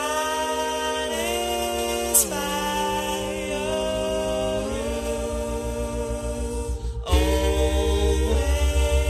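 A cappella vocal music: several voices in harmony holding sustained chords that shift to new chords every second or two. About seven seconds in, a low pulsing beat joins and the music gets louder.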